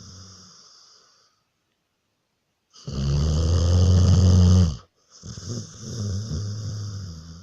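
Snoring in slow, regular breaths: a loud, rattling snore about three seconds in, then a longer breath with a hiss over a lower rattle near the end.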